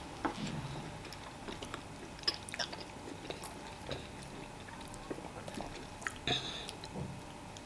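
Close-miked chewing and biting of fufu and vegetable soup: soft wet mouth sounds with scattered small clicks and smacks, and a sharper burst about six seconds in.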